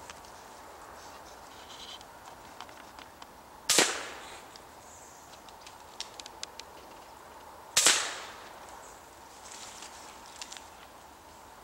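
Two gunshots about four seconds apart, each a sharp crack with a short echoing tail.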